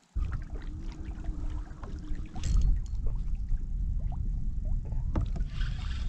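Wind buffeting the camera microphone in a low, uneven rumble, with water slapping and trickling against a plastic kayak hull and scattered small clicks from the kayak and fishing gear. It starts abruptly just after the beginning.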